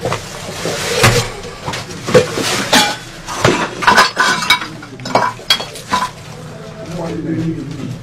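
Shrine objects and bottles being knocked about and smashed: a run of sharp knocks and bangs with metal and glass clattering, clinking and breaking.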